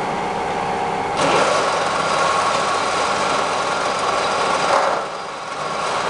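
16K20 screw-cutting lathe running steadily; about a second in it suddenly gets louder and brighter, then drops back near five seconds.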